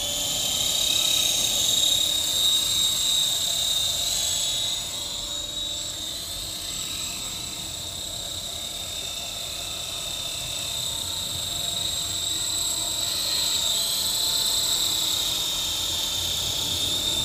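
SkyKing HCW8500 remote-control helicopter lifting off and flying: a steady high whine from its motor and rotors that wavers slightly in pitch and loudness as the throttle changes.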